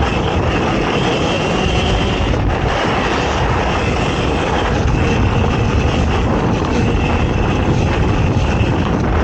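Off-road ATV engine running at speed during a cross-country race, a loud, steady din with no clear revving or pauses.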